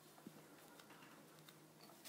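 Near silence: room tone with a faint steady low hum and a few faint light ticks.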